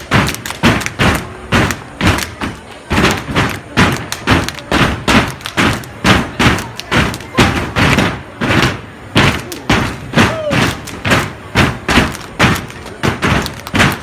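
Fraternity step team stepping: a quick, steady rhythm of sharp stomps and claps, hit together in unison.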